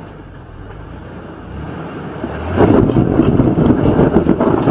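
Off-road truck's engine running as it crawls over rocks. About two and a half seconds in it gets much louder, with wind rumbling on the microphone.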